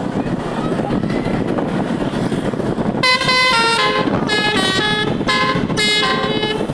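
A bus's telolet horn, a multi-tone musical air horn, playing a quick run of changing notes like a tune, starting about halfway in. Before that, a steady rumbling road and engine noise.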